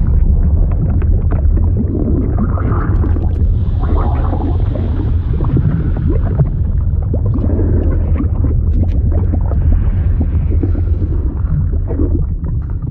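Liquid sound effect: a steady deep rumble with bubbling, gurgling and crackling over it.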